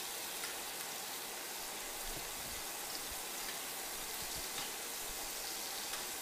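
Lamb chops sizzling in hot butter and oil in a cast iron skillet as the fat is spooned over them: a steady frying hiss with a few faint pops.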